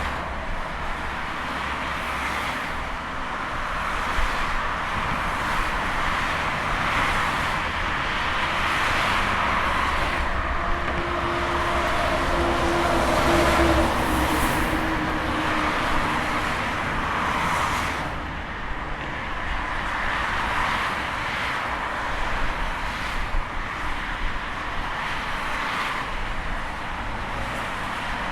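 Busy highway traffic: a continuous wash of tyre and engine noise as vehicles pass one after another. The noise swells and fades with each pass, and one louder vehicle with a low hum goes by about halfway through.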